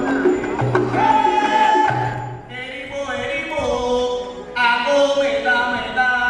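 Afro-Cuban Yoruba (Lucumí) sacred music for the orishas: voices singing a chant over batá drums.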